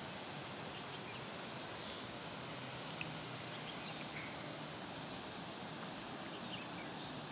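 Steady rush of a fast mountain river below, with a few faint, brief bird chirps.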